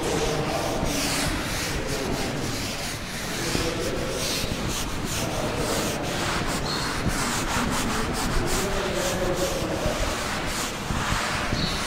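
Blackboard eraser scrubbing across a chalkboard in a run of back-and-forth strokes, wiping off chalk writing.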